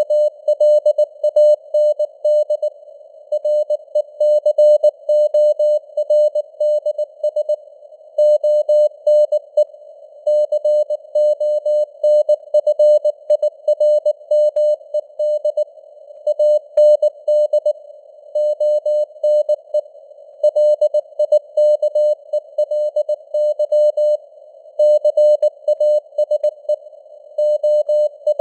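Morse code sent at 19 words per minute: a single mid-pitched beep keyed on and off in dots, dashes and gaps, heard through simulated radio band noise, a narrow hiss around the tone, with the signal strength fading up and down (QSB).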